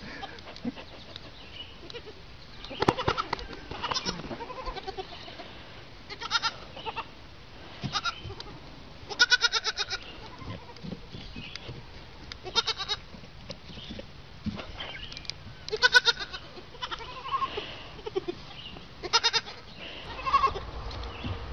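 Goat kids bleating, about nine short quavering cries spaced a second or two apart.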